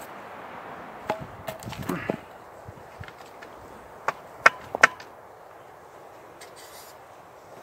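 Sharp knocks and clacks, like something hard striking wood or tools: a scattered group about a second in, then three louder, crisp hits about four to five seconds in.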